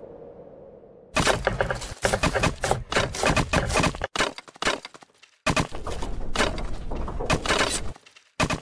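Plastic LEGO bricks clattering and clicking in dense, rapid runs, starting about a second in, with short breaks near the middle and near the end.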